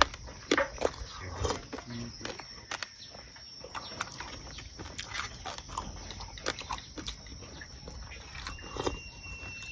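A person eating close to the microphone: irregular wet smacks, clicks and chewing noises.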